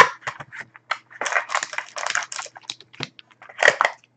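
A shrink-wrapped cardboard box of trading cards being opened by hand, with a sharp snap first, then a dense run of plastic crinkling and crackling about a second in. Another burst of rustling comes near the end as the foil packs are pulled out.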